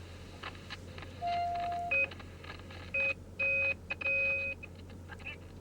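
Mobile phone giving a series of electronic beeps while a call is placed or connected: one longer tone about a second in, then four shorter beeps. A steady low hum runs underneath.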